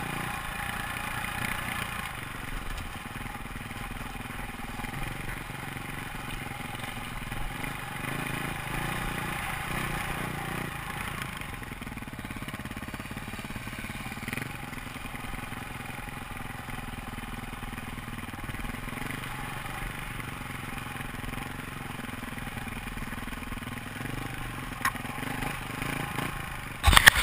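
KTM dirt bike engine running steadily while riding a rocky dirt trail, heard from the rider's helmet camera, with rattle from the rough ground. A sudden loud clatter near the end.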